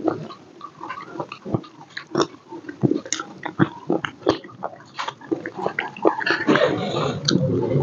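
Close-miked eating sounds: wet mouth clicks and lip smacks from chewing, with rice being worked by hand. From about six seconds in comes a denser, rustling stretch as curry is scraped out of a steel bowl onto the rice.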